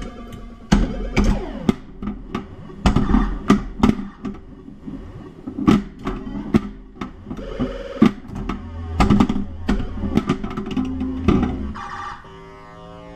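1980 Stern Stargazer pinball machine in play: rapid sharp clacks of flippers, bumpers and solenoids mixed with the game's electronic beeps and tones. About twelve seconds in, the clacking stops and a run of stepped electronic tones plays.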